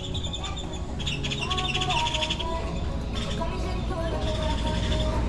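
Background music with a stepping melody, mixed with birds chirping in fast rapid trills.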